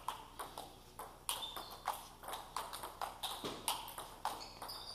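Table tennis rally: celluloid balls clicking sharply off bats and table, several knocks a second in a quick, uneven pattern.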